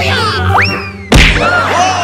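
Comedy sound effects over background music: a quick whistle-like tone that shoots up in pitch and slowly sinks, then a loud, sharp whack a little over a second in.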